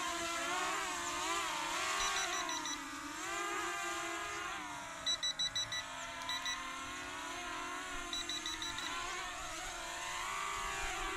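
Holy Stone HS360 quadcopter's brushless motors and propellers whining, the pitch wavering up and down as the motors speed up and slow down. Quick groups of short high beeps sound several times over it.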